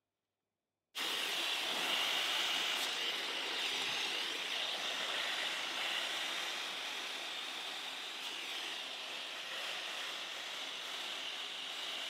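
Muttus M12X leafless hair dryer blowing, a steady rush of air with a high whine, directed through hair held on a round brush. It starts abruptly about a second in.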